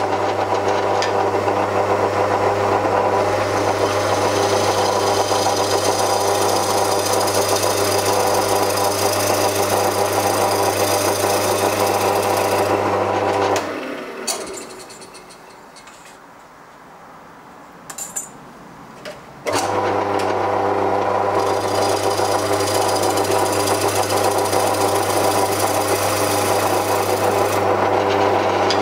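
Wood lathe running with a roughing-out gouge cutting across the face of a spinning wooden disc: a steady motor hum under a rough cutting noise. About 14 s in the lathe stops and spins down, a few light knocks follow, and at about 20 s it starts again with the same hum and cutting.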